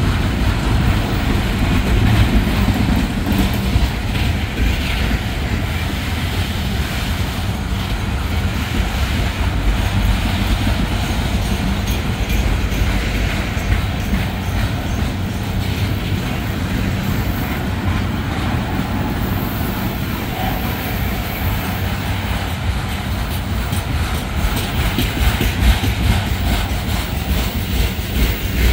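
Freight train of flatcars carrying trash containers rolling past, a steady heavy rumble with constant clatter of steel wheels on the rails.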